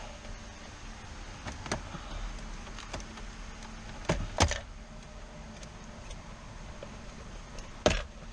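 Plastic interior trim in a Mazda RX-7 being pried up by hand: a few sharp clicks and knocks, the loudest about halfway through and just before the end, over a low steady hum.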